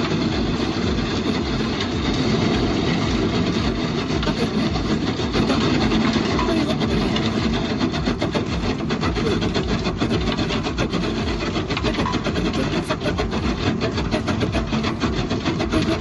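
Power wood-cutting machinery cutting through wood: a steady, loud rasping, with a rapid run of clicks through the second half.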